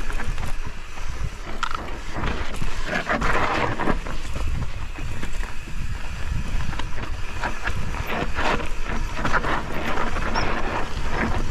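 Mountain bike descending a steep rocky trail: tyres crunching over rock and loose gravel and the bike rattling over the bumps in a constant run of knocks, with wind rumbling on the microphone.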